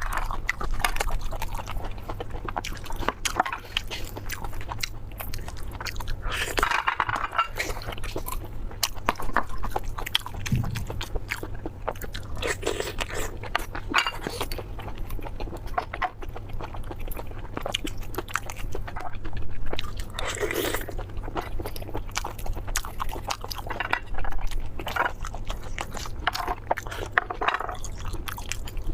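Eating sounds: repeated crunchy bites and chewing, a dense run of small irregular clicks and crackles, over a low steady hum.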